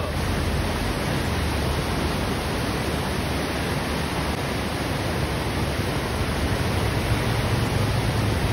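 Steady rushing of a fast-flowing mountain river: an even wash of water noise with no breaks.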